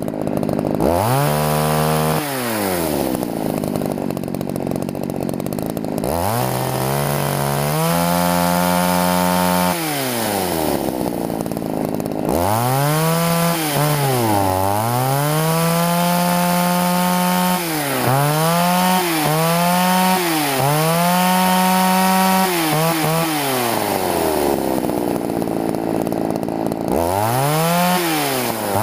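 Poulan two-stroke chainsaw engine revved up from idle and dropped back about four times, the third rev held high for about ten seconds with several quick dips. The carburettor's high-speed mixture screw is being adjusted between too lean and too rich.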